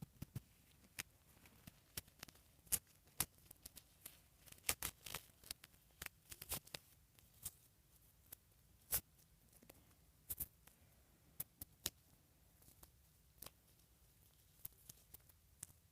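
Irregular small clicks, taps and ticks of hands handling a doll and its packaging and accessories, scattered unevenly with short quiet gaps.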